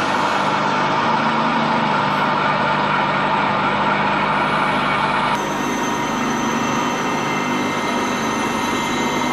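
Metal lathe running, its spindle and gears giving a steady mechanical hum with a whine. About five seconds in the sound changes abruptly and a thin high whine joins it.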